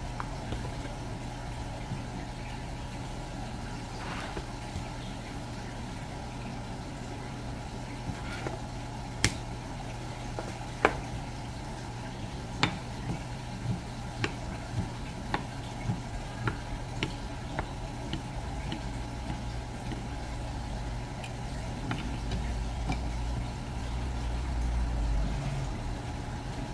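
Sharp taps of a knife against a cutting board, roughly one or two a second, as yellowtail is sliced, over a steady low machine hum. A deeper rumble swells near the end.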